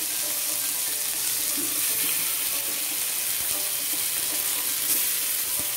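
Buttermilk-soaked bread pieces sizzling in hot oil on a tawa, together with a tempering of mustard seeds, green chillies and curry leaves: a steady frying hiss.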